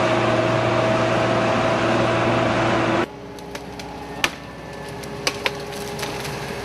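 A heavy forestry machine's engine and hydraulics running loud and steady. About three seconds in, the sound cuts off suddenly to a quieter engine hum with a few sharp knocks.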